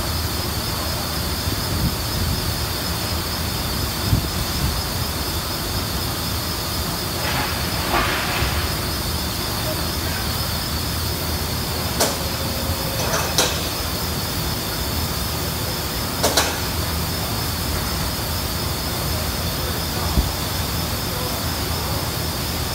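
Factory floor noise: a steady rumble under a constant high whine, with a brief hiss about a third of the way in and three sharp clanks in the middle.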